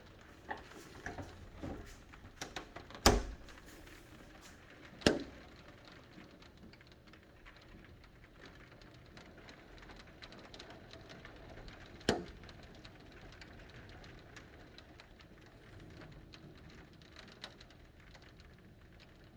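Rain falling in a steady faint patter, with sharp taps of drops or drips, several in the first five seconds and one more about twelve seconds in.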